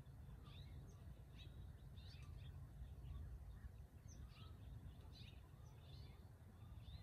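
Faint birds chirping, short high calls a second or less apart, over a low steady rumble.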